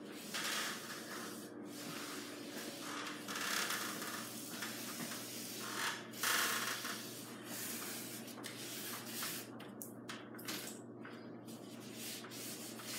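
Lubricant being applied to and wiped along a garage door torsion spring, heard as a few hissing, rubbing strokes about a second each over a faint steady hum.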